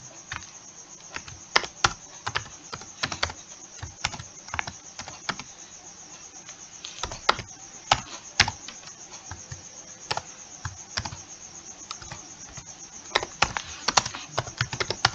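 Typing on a computer keyboard: irregular keystrokes with short pauses between runs, as lines of C code are entered.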